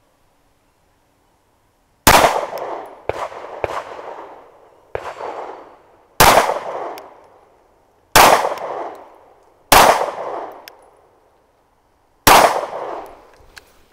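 Sig Sauer P320 Compact pistol firing five single shots at an irregular pace, each crack followed by a ringing, echoing tail. Three fainter sharp reports fall between the first and second shots.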